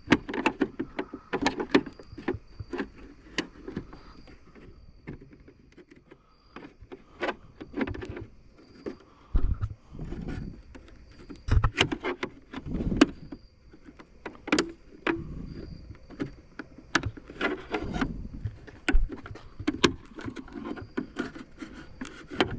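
A screwdriver prying and pushing at the plastic retaining clip of a 2008 Ford F250's side-mirror marker light: many irregular clicks, knocks and scrapes of metal against plastic, with a few heavier thumps in the middle as it takes more force than expected.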